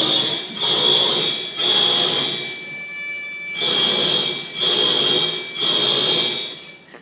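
Fake fire alarm played back, sounding in loud high-pitched beeps of just under a second each: three beeps, a short break, then three more, cutting off just before the end.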